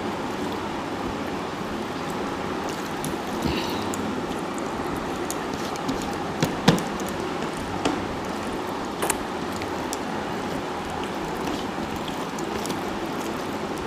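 Eating at a table by hand: rice being mixed and scooped on plates, chewing and a few small sharp clicks and taps, the loudest about halfway through. A steady rushing background noise runs under them.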